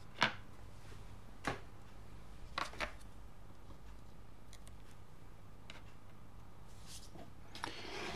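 Metal tweezers and small hobby tools handled on a cutting mat while placing tiny grass tufts: a few short sharp clicks, the first the loudest, then light rustling near the end.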